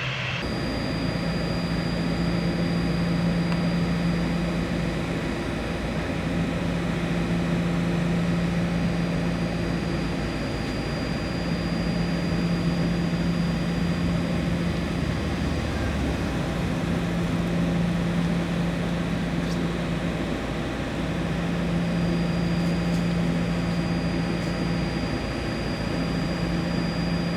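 Steady machine noise with a low hum that swells and fades every couple of seconds and a faint high whine above it.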